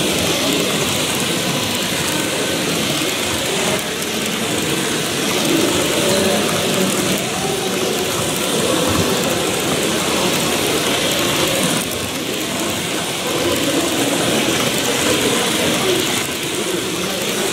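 HO-scale model train rolling past: a steady metallic rattle of many small wheels on the track as a long string of autorack cars goes by, with a murmur of voices in the hall behind.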